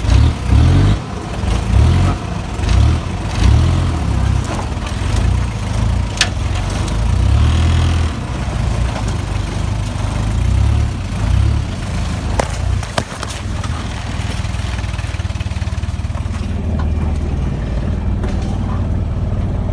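Kia Sportage's engine heard from inside the cabin, labouring off-road with the throttle swelling and easing in uneven surges, with a few sharp knocks from the vehicle jolting around the middle. It then settles to a steadier run near the end.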